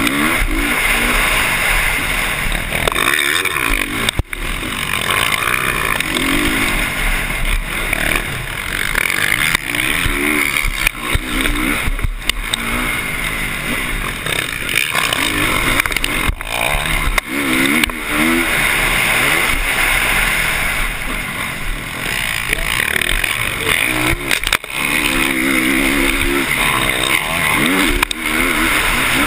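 Motocross dirt bike engine under hard riding, its revs climbing again and again and dropping back between gear changes, with a few brief dips in the sound.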